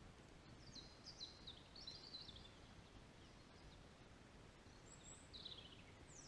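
Faint songbird song: quick descending twittering phrases about half a second to two and a half seconds in, and another short descending phrase about five seconds in, over quiet steady background noise.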